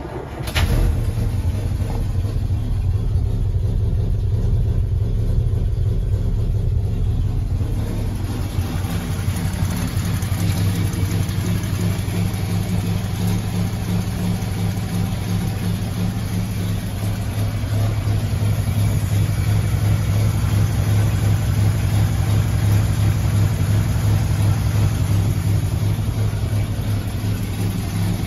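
1951 Bentley's inlet-over-exhaust straight-six engine on a cold start: it fires within about a second and then runs steadily.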